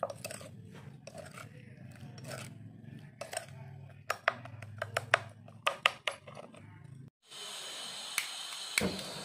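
Kitchen items and containers being handled and set down: a run of sharp clicks and clinks, thickest between about three and six seconds in. About seven seconds in the sound cuts out briefly, then a steady hiss with a faint high tone takes over.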